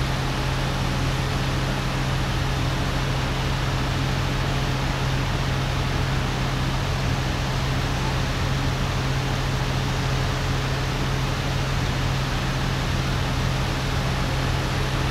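Steady machinery drone: an unchanging low hum under an even rushing hiss, with no breaks or changes.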